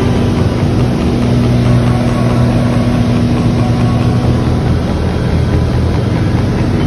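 Extra 300 aerobatic plane's piston engine and propeller droning steadily in flight, heard inside the cockpit with a constant rush of air noise over a low, even hum.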